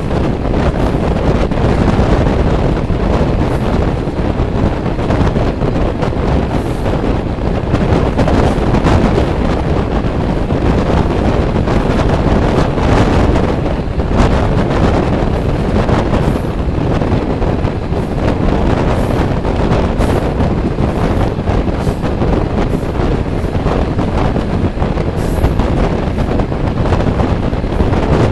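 Wind rushing over the microphone at the open window of a moving passenger train, over the steady running noise of the train on the track.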